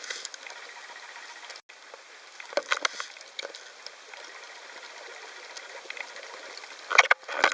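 Water noise on a diving camera's microphone: a steady hiss with scattered crackles, and two louder bursts of churning water, about two and a half seconds in and near the end. A brief dropout comes about one and a half seconds in.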